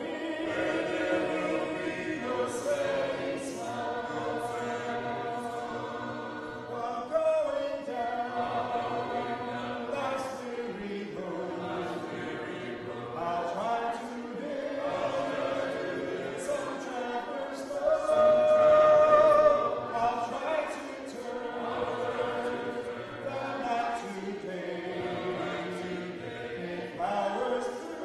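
A church congregation singing a hymn together, unaccompanied by instruments, with several voice parts heard at once.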